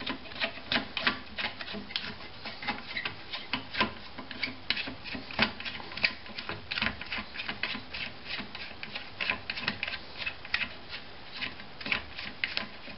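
Plastic toilet-seat hinge bolt being unscrewed with a screwdriver from its plastic nut, held by hand underneath: irregular light clicking and ticking, a few clicks a second, as the plastic parts turn and rub.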